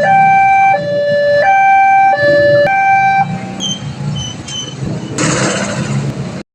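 Railway level-crossing warning siren sounding a two-tone alarm, its two pitches alternating about every 0.7 s, which stops about three seconds in. A few short high beeps follow, then a brief burst of hiss near the end before the sound cuts off suddenly.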